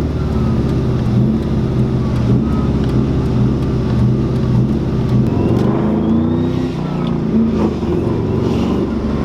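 Ford 4.6 V8 in a New Edge Mustang running as the car is driven, its pitch rising and falling with the throttle. The engine is near failure and smoking heavily from a blown head gasket that led to rod bearing failure.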